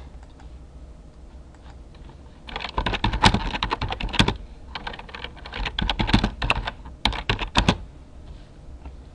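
Typing on a computer keyboard: a run of quick keystrokes starts about two and a half seconds in and lasts about five seconds, with a brief pause partway through.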